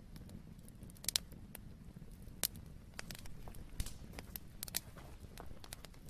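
Faint, scattered crackles and clicks, a dozen or so at uneven intervals, from a logo intro's sound effect of sparks and embers.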